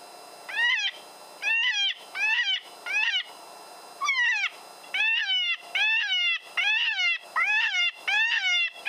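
Coyote predator call playing a prey distress sound: a string of short, high, squealing cries, each falling in pitch, about two a second, with a brief break about three and a half seconds in.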